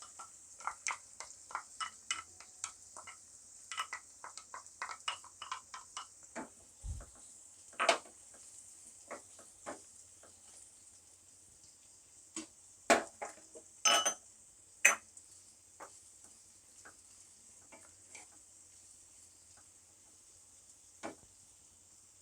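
Chopped onions frying in hot oil with a steady sizzle, while a spoon clicks and scrapes against the pan as they are stirred, rapidly for the first several seconds, then a few louder knocks on the pan further on.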